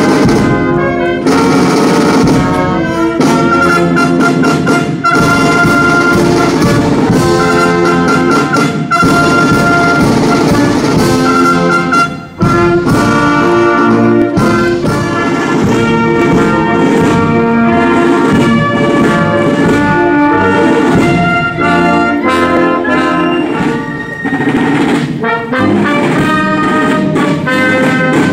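Military brass band playing a piece, trumpets and trombones prominent, with a short break about twelve seconds in.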